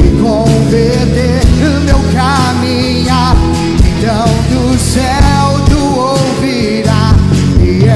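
Live worship band playing a rock-style praise song, with electric guitars, bass and drums and a wavering sung melody over them.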